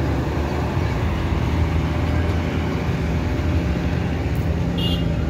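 Heavy diesel engines of a bus and a truck running with a steady low rumble as they drive off a river ferry up the landing ramp.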